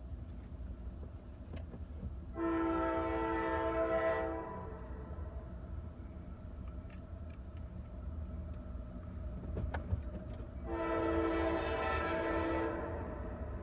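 Distant diesel locomotive air horn on an approaching CSX train, sounding two long chord blasts of about two seconds each, some eight seconds apart, over a steady low rumble.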